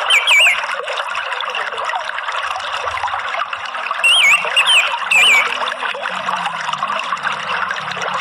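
Steady trickling water, with short twittering whistled phrases of an orange-headed thrush at the start and again about four seconds in.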